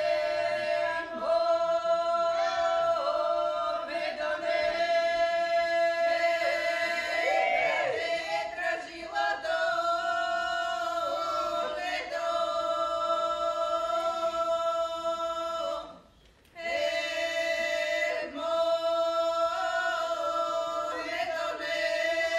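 Bulgarian women's folk choir singing unaccompanied in the Shopi polyphonic style, one voice line moving over a steadily held drone. The singing breaks off briefly about sixteen seconds in, then the next phrase starts.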